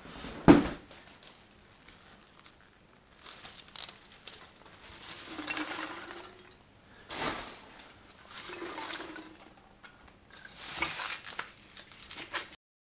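Polystyrene foam packing pieces being tossed and pressed by hand into a glass jar of acetone. There is a sharp knock about half a second in, then five or six short stretches of foam rustling and crinkling against the glass.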